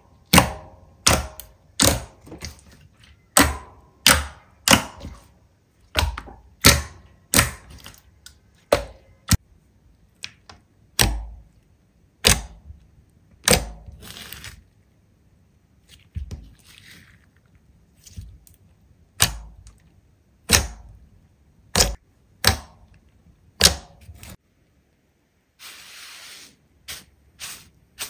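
Slime being played with by hand, giving a run of sharp clicks and pops about one a second, some in quick pairs, with a short softer crackle near the end.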